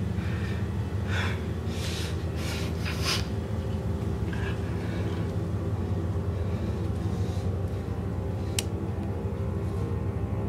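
A steady low rumbling drone, with a few quick, sharp breaths in the first few seconds and a single sharp click about eight and a half seconds in.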